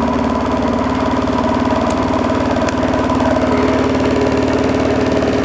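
Bedini SG pulse motor running steadily: its spinning rotor and pulsed coil give a steady buzzing hum with a fast, even pulse through it. A couple of faint clicks sound near the middle.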